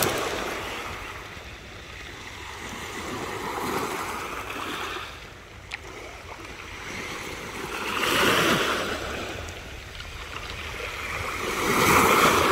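Ocean surf breaking on the shore, the wash swelling and fading three times, about every four seconds.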